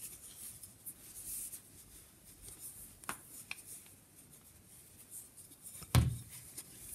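Wooden knitting needles and chunky wool yarn rustling and clicking softly as stitches are worked by hand, with a sharper knock about six seconds in, the loudest sound.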